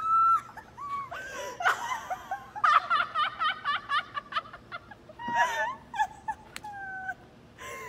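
Young women laughing and giggling in high voices, breaking into a quick run of short laughs in the middle, with a single knock about five seconds in.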